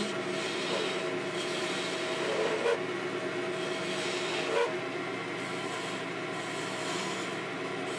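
Wood lathe running with a steady hum while a hand-held turning tool cuts the spinning maple blank in a continuous scraping shave, with two brief louder scrapes a little before the halfway point.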